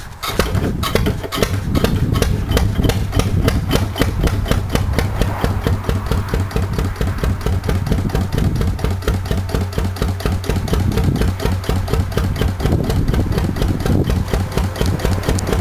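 Tangye VCDF1 single-cylinder stationary diesel engine running steadily, with an even, regular beat of firing strokes.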